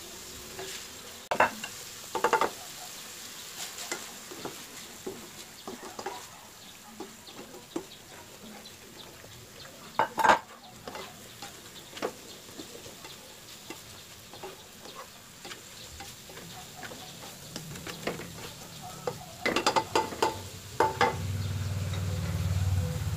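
Spatula scraping and clattering against a nonstick frying pan as sliced bitter gourd is stirred, under a low, steady sizzle. There are sharp knocks a second or two in, a loud one about ten seconds in, and a quick run of them near the end.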